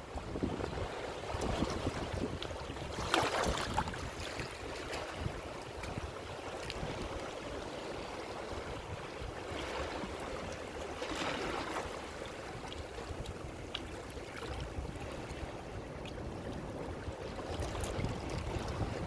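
Ocean waves washing onto a shore, a steady surf hiss that swells as waves break, about three times.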